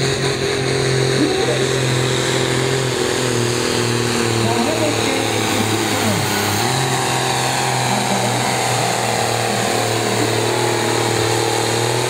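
Ford pulling tractor's diesel engine running flat out under full load as it drags the weight sled, holding a steady pitch with a brief dip about halfway through.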